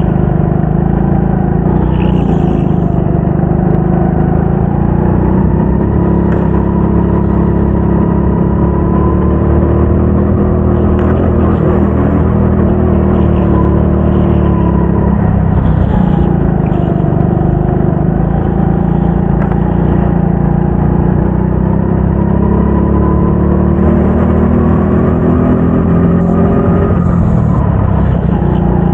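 Go-kart engine running hard through a race lap, its pitch rising and falling every few seconds as the kart accelerates out of corners and lifts off into the next.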